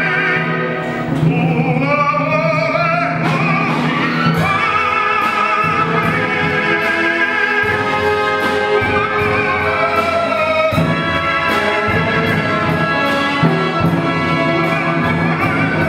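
Male opera singer holding a note with vibrato over a symphony orchestra, then the orchestra playing on without him.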